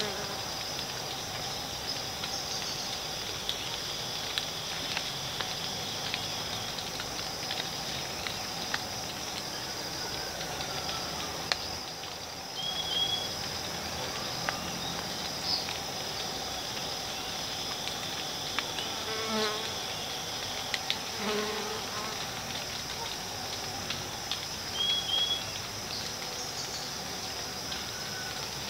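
Steady high-pitched insect chorus, with a few short chirps and ticks now and then.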